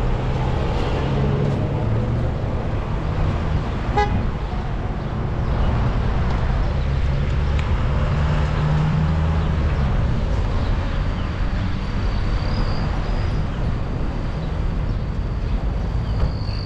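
Street traffic: a steady low rumble of car engines and road noise, with one brief sharp sound about four seconds in.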